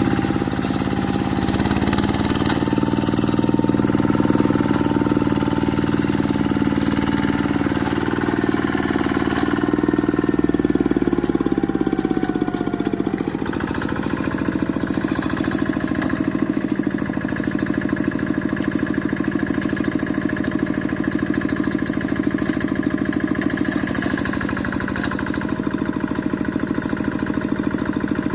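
Quick G1000 two-wheel hand tractor's engine running steadily, its pitch and level shifting briefly about halfway through before settling into an even, slightly quieter run.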